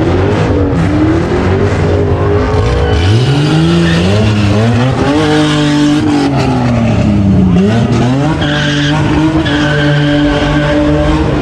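Car engine revving hard and dropping back over and over during a burnout, with tyres squealing in stretches, most plainly in the last few seconds.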